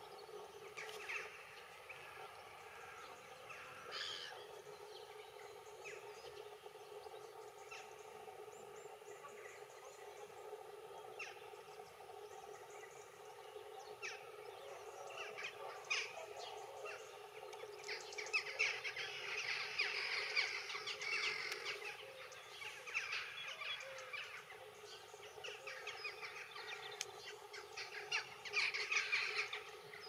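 Birds calling: a scatter of short calls and chirps, growing busier about two-thirds of the way through and again near the end.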